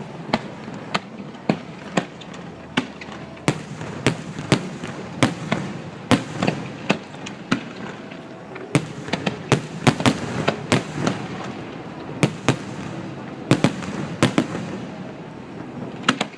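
Aerial fireworks bursting in a long irregular string of sharp bangs, some single and some in quick clusters, busiest around the middle and again near the end.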